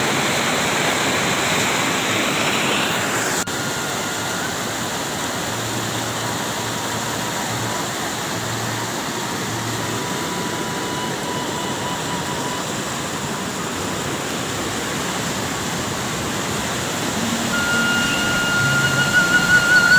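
Steady rushing roar of a waterfall and its river. The roar drops a little in level with an abrupt cut about three and a half seconds in, and faint music comes in under it near the end.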